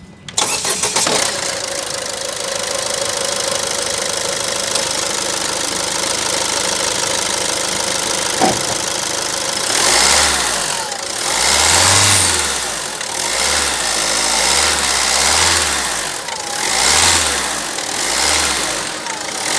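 Ford Figo Aspire car engine starting with a short burst of cranking strokes, then running steadily at idle. About halfway through, the engine sound begins to swell and fall every couple of seconds.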